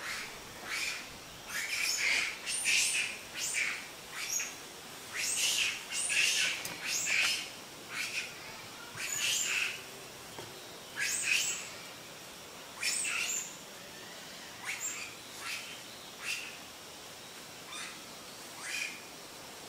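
Birds calling in the canopy: a run of short, sharp, high chirps, one or two a second, busy for the first dozen seconds and then sparser and fainter.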